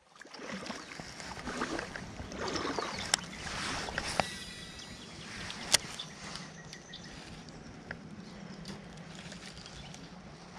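Shallow creek water sloshing and swishing, likely from wading. It is louder for the first few seconds, then settles to a steady low wash, with a few sharp clicks.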